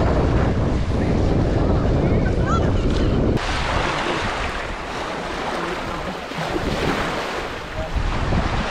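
Wind rumbling on the microphone over splashing shallow water. About three and a half seconds in it cuts abruptly to a quieter wash of small waves on a sand beach, with lighter wind.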